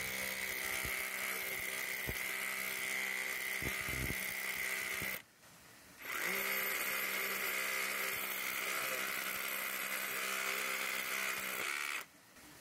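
Waitley YN-5026 18 V cordless SDS hammer drill running in chisel mode, driving a point chisel into a hard rock layer. It runs for about five seconds, stops briefly, runs again for about six seconds, then cuts off near the end.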